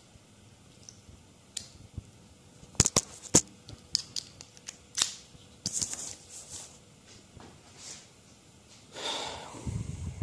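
Scattered small sharp clicks and taps of a metal car-door lock cylinder and its key being handled and fitted into the plastic lock housing, with a short rustling scrape near the end.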